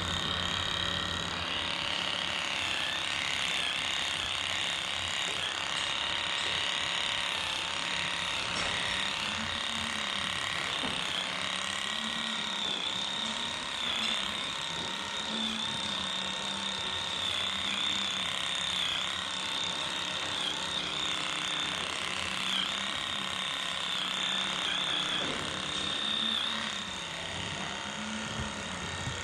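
Handheld electric cow-tail brush running continuously, its motor pitch dipping and recovering every second or two as it is worked along the tail.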